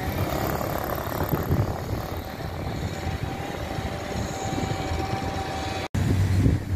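Steady street-traffic noise from a busy city avenue: a low rumble and hiss of passing vehicles. The sound drops out for an instant about six seconds in, and the rumble is louder after it.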